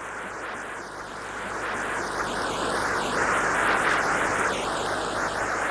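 Shallow river rushing over stones, a steady noise that grows a little louder towards the middle.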